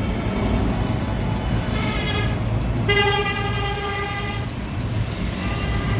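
Vehicle horn honking three times, the middle honk the longest at about a second and a half, over the steady low rumble of a truck engine.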